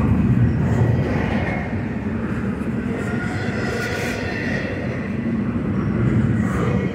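Double-stack intermodal well cars rolling past at speed: a steady rumble of steel wheels on the rails.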